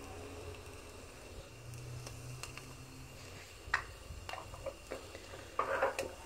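Quiet kitchen handling around a saucepan of milk heating on the stove: a few light clicks and knocks of a utensil against the pan over a low steady hum, with a small cluster of knocks near the end.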